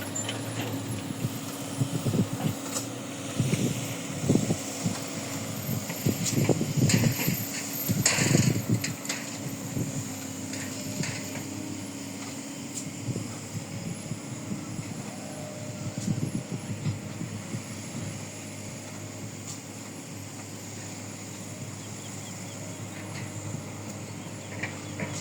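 Heavy mining machinery with its engine running steadily, and irregular clattering and knocking that are heaviest in the first third.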